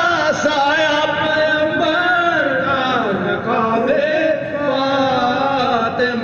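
Men's voices singing soz, the unaccompanied Urdu lament, with a lead singer and supporting voices drawing out long, ornamented notes. The melody glides down and back up about halfway through.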